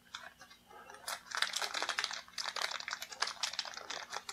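Thin clear plastic bag crinkling as hands pull it open and work a small plastic figure stand out of it: a dense run of quick crackles starting about a second in.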